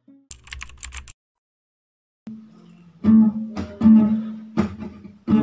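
Nylon-string classical guitar: a short run of quick scratchy strokes, then about a second of silence, then strummed chords with sharp strokes from about two seconds in.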